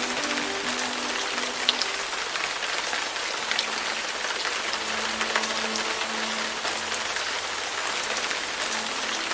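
Steady rain falling, an even hiss with scattered louder drops ticking through it. Soft background music notes are faintly heard beneath it near the start and again midway.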